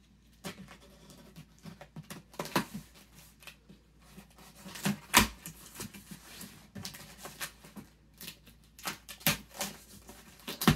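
A cardboard shipping box being cut open with a knife: the blade slitting the packing tape and the cardboard flaps scraping and rustling, with an irregular run of clicks and a few sharp knocks, the loudest about halfway through and near the end.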